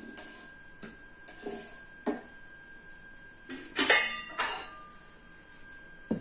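Metal spatula scraping and clinking against a ridged grill pan while turning a pancake: a few light knocks, then a louder ringing clatter about four seconds in.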